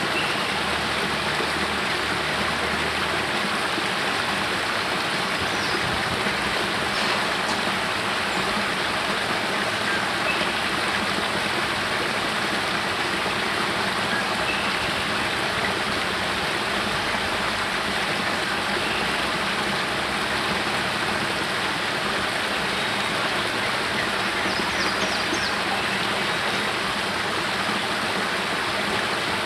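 Small spring-fed waterfall splashing out of a cave mouth over rocks into a pool: a steady rush of falling water.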